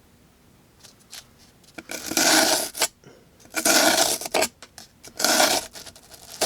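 D2 steel blade of a Bestech Eye of Ra folding knife slicing through cardboard. There are three cuts, each under a second, starting about two seconds in.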